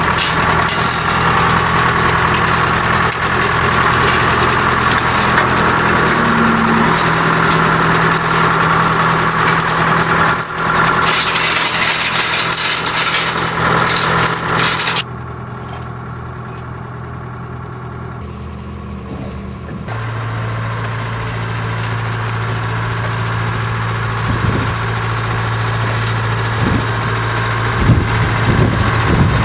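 Heavy equipment engine running steadily at an even pitch. About halfway through the sound drops suddenly, then a few seconds later it returns as a steadier, lower hum.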